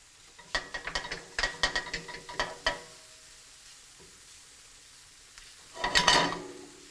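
A spatula scraping and clicking against a nonstick frying pan as diced mushrooms are stirred in butter: a quick run of scrapes and taps over the first few seconds, then a quieter stretch, and one louder scrape about six seconds in.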